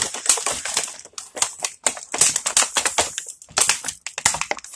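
Crinkly plastic packaging crackling and clicking as it is handled and pulled open, a rapid irregular run of sharp crackles with short gaps.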